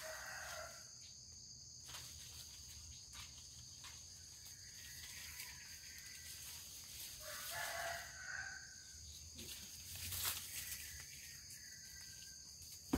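A rooster crowing, once at the start and again about seven seconds in, over a steady high drone of insects. A few light knocks come from a thin bamboo stem being handled.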